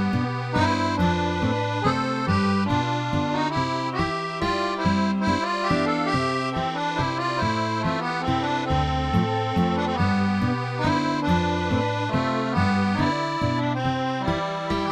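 Accordion music with a bass line that moves in even steps under a changing melody.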